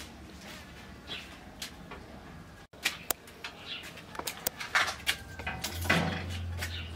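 Metal firebox door of a brick wood-burning stove opening with a few clicks, then sticks of firewood knocking and shuffling inside the firebox. Birds chirp in the background, and a low hum comes in near the end.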